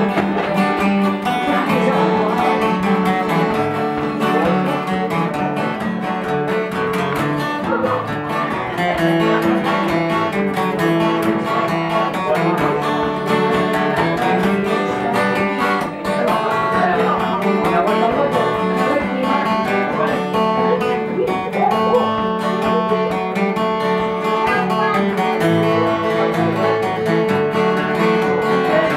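Two acoustic guitars played together, strumming chords through a tune.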